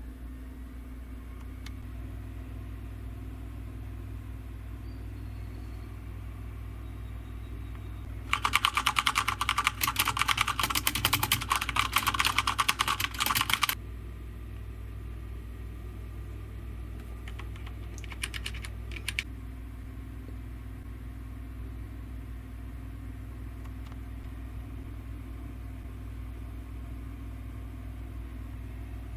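Fast typing on a mechanical keyboard: a quick run of key clicks lasting about five seconds, starting about eight seconds in, then a few more keystrokes several seconds later. A steady low hum runs underneath.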